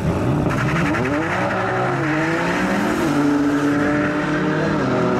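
BMW M4 F82's twin-turbo inline-six revving up and down repeatedly during a burnout, with the rear tyres spinning and squealing on the tarmac from about half a second in.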